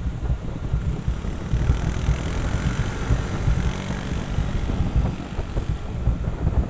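Wind buffeting the microphone as a low, choppy rumble, over a steady road or traffic noise that swells briefly in the middle.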